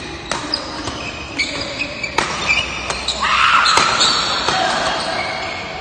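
Badminton rally: a quick series of about five sharp racket-on-shuttlecock hits, with shoes squeaking on the court floor between them.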